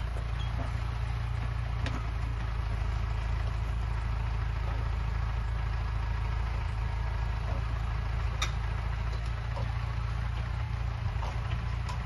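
Tractor's diesel engine running steadily, driving the hydraulics of a Metavic forestry trailer's crane as it grabs and lifts a log. A few faint clicks sound over the engine.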